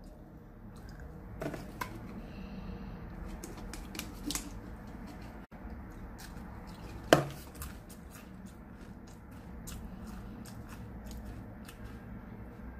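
Pringles potato crisp being bitten and chewed close to the microphone: scattered sharp crunches and small crackles, with one loud knock about seven seconds in.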